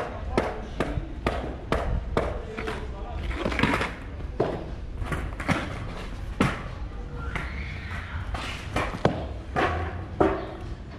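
Skateboard clacking and scraping on concrete: a quick run of sharp knocks, several a second, as the board is worked against the ground to grind down its protruding bolts.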